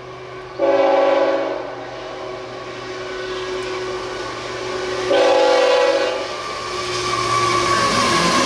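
CSX freight diesel locomotive's air horn sounding two long blasts for the grade crossing. After them comes the rising rumble of the train as the locomotive reaches the crossing near the end.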